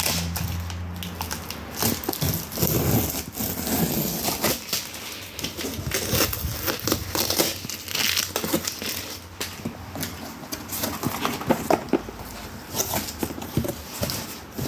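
Packaging of a sliding gate motor kit being opened and handled: irregular crinkling and rustling of wrapping, with scattered clicks and knocks as parts are moved.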